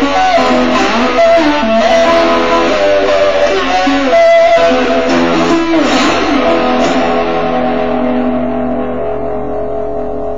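Electric guitar music, plucked and strummed, ending on a last chord that rings on and slowly fades over the final few seconds.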